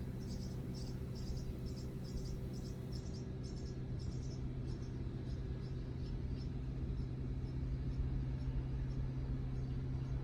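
Cricket chirping in a steady rhythm of about three chirps a second, plain at first and fading after a few seconds, over a steady low hum.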